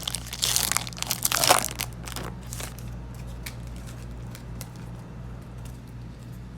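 A Yu-Gi-Oh booster pack's wrapper being torn open and crinkled for about the first two and a half seconds, then quieter handling with a few faint ticks.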